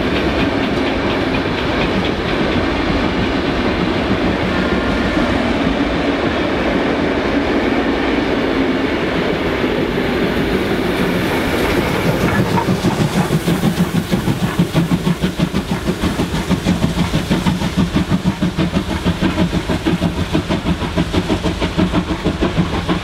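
Heritage steam train climbing a steep grade, carriage wheels clicking over the rail joints. From about halfway in, the steam locomotive's exhaust takes over with loud, rapid, regular chuffs as it works hard up the bank.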